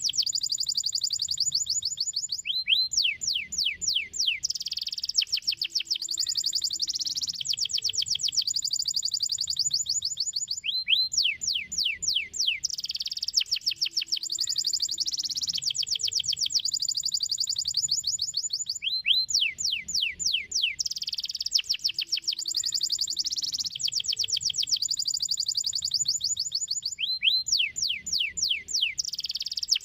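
Domestic canary singing: rapid high trills alternating with runs of quick downward-sweeping notes, the same phrase coming back about every eight seconds.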